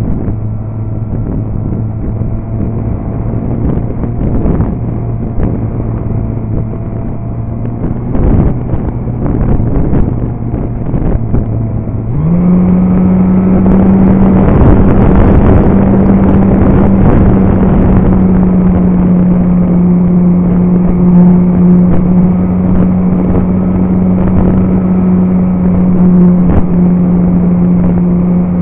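Motor and propeller of a radio-controlled Super Cub model plane, heard close from an onboard camera over a rush of wind. About twelve seconds in the throttle goes up: the steady drone jumps quickly to a higher pitch and stays there, louder.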